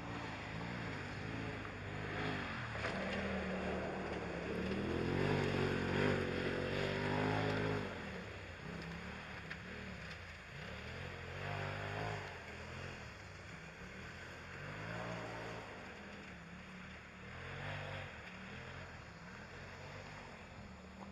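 Kawasaki Mojave ATV engine revving up and down as the quad is ridden over a dirt track. It is loudest in a long pull about five to eight seconds in, then eases off into several shorter revs.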